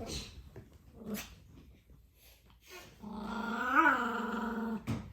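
Pomeranian puppy's 'roar': one long pitched growl starting about three seconds in and lasting nearly two seconds, rising briefly in pitch midway, followed by a sharp click. A couple of short, soft sounds come before it.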